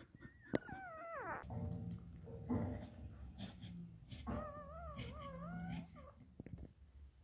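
Labrador mother and her newborn puppies whining: a high cry that falls steeply in pitch about a second in, and a longer wavering one later, over a low steady hum with a few soft clicks.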